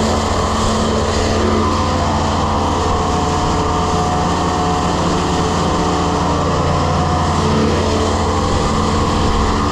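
Grain vac running: a loud, steady machine drone with a rush of air underneath, unchanging throughout.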